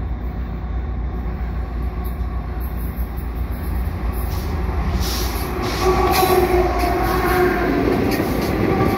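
CN diesel freight train approaching with a steady low rumble. About six seconds in, a held locomotive horn chord sounds over it and carries on.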